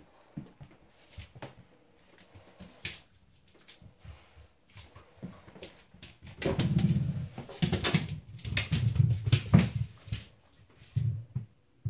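A Dogue de Bordeaux puppy scrambling on a vinyl kitchen floor: scattered claw clicks, then a louder, busier patch of clattering and thumps from about six to ten seconds in as it runs and scrabbles.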